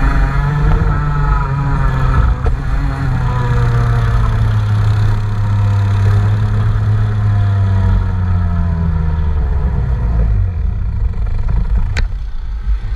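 Engine running under test, its revs easing down slowly and then falling away about ten seconds in. A single sharp click near the end.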